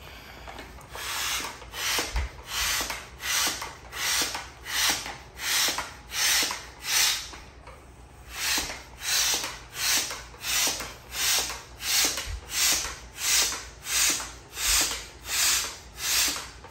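Upright hand air pump being worked up and down, pushing air through its hose into an inflatable kiddie pool. Each stroke gives a rhythmic airy whoosh, about one and a half strokes a second, with a short pause about halfway through.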